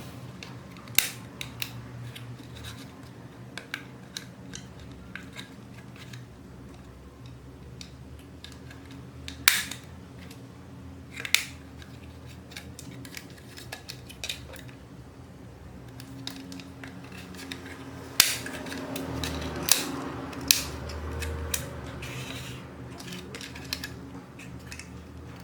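Sporadic sharp clicks and clacks of hand tools and small parts handled against a CCTV camera's housing while it is being prised open and taken apart, over a low steady hum.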